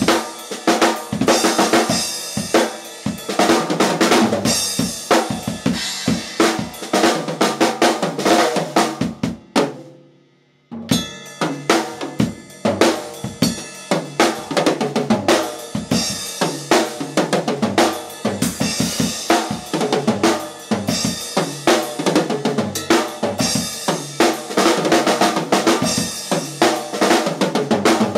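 Drum kit played busily, with kick, snare and cymbal hits in quick succession. The playing dies away for about a second around ten seconds in, then comes back in abruptly.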